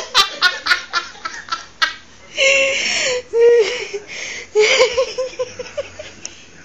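High-pitched laughter in quick, rhythmic bursts, breaking into a longer, breathy peal about two and a half seconds in, then another run of short laughs around five seconds.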